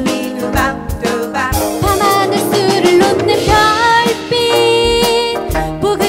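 Gayageum (Korean zithers) plucked in a pop-style song, with a drum kit keeping the beat and a voice singing over it.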